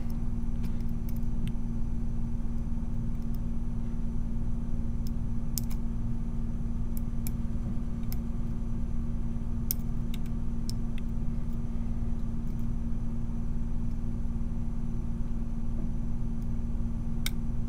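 A steady low hum, with a handful of faint, sharp metallic ticks from a pick working the pins of a 6-pin Yale dimple lock cylinder under tension, most of them clustered in the middle and one near the end.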